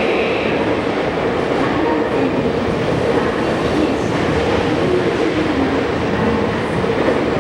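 Tokyu electric commuter train moving through the station: a steady rumble of wheels on rails with clickety-clack over the rail joints. An electric motor whine rises and falls in pitch partway through.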